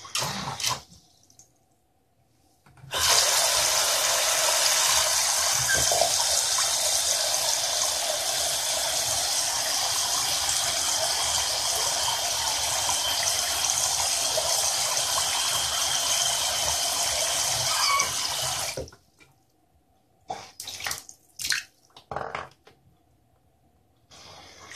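Mini 12 V DC brushless submersible water pump running at 12 volts in a sink, its jet spraying and splashing across the water for about sixteen seconds, starting about three seconds in and cutting off suddenly. A few short knocks come before it starts and after it stops.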